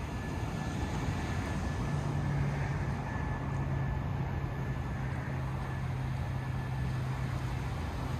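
Steady wash of ocean surf with wind rumbling on the microphone. A steady low hum, like a distant engine, joins about two seconds in and sinks slightly in pitch.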